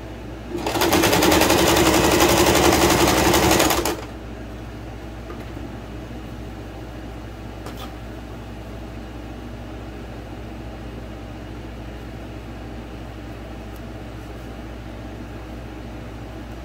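Electric sewing machine running at a fast, even stitching rate for about three seconds, then stopping.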